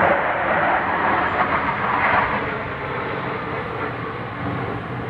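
A formation of military jet fighters flying overhead, heard as a steady jet rumble. It is loudest in the first two seconds, then slowly fades as they move away.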